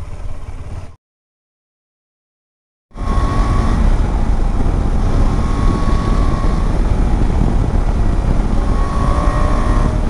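Motorcycle on the move: loud, steady rumble of road and wind noise. It drops out completely about a second in, then comes back about two seconds later.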